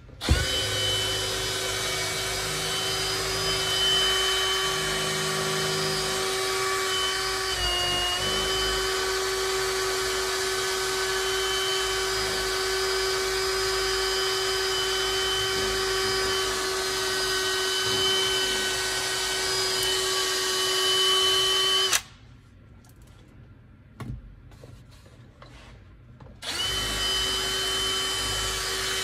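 Small electric power tool motor running steadily with a high whine. It dips briefly in pitch about eight seconds in, as if under load, then cuts off and starts up again about four seconds later.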